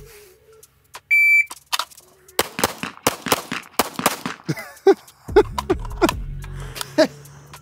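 Shot-timer beep, one short steady high tone, followed by a quick string of Glock pistol shots fired as double taps on three targets, the last coming about three seconds after the beep. A few more spaced shots follow.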